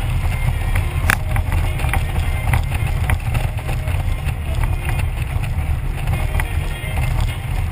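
Wind rumbling over the microphone and a touring motorcycle's engine running at road speed. A single sharp knock comes about a second in.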